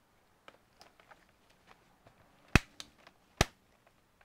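Plastic laptop bottom cover being pressed shut, its clips snapping into place: light clicks, then two loud sharp snaps a little under a second apart past the middle.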